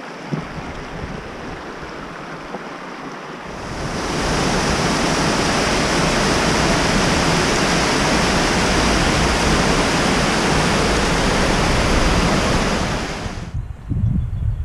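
A shallow river rushing over stones. About four seconds in, this gives way to the much louder, steady rush of water pouring down a concrete weir spillway, which cuts off suddenly near the end, leaving gusts of wind on the microphone.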